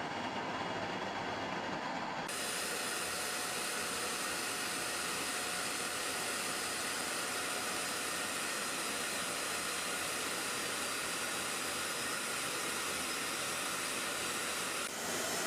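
Jet engines running, a steady rushing noise with no clear pitch. It turns abruptly brighter about two seconds in and shifts again just before the end, like cuts between shots.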